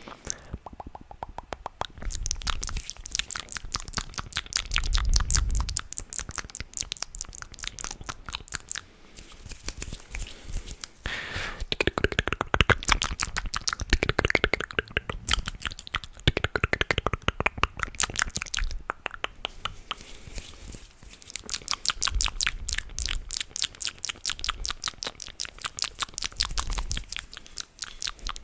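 Close-miked ASMR trigger sounds: rapid, crackly clicking in runs of many clicks a second, with brief pauses.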